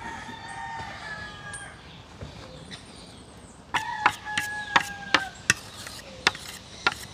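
A rooster crowing twice in the background, faintly at first and then louder about four seconds in. Over the second crow comes a quick run of sharp clicks and taps, a utensil knocking against the mixing bowl and metal loaf pan while batter is scraped out.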